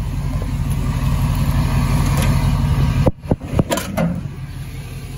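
Refreshed 5.3 Vortec LS V8 with headers and Flowmaster dual exhaust idling with a steady low rumble. About three seconds in, a quick cluster of knocks and clicks as the hood is unlatched and raised, after which the idle sounds quieter.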